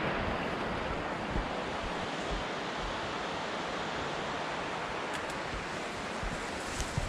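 Wind blowing across the microphone: a steady rushing with uneven low buffeting gusts, and a couple of faint ticks near the end.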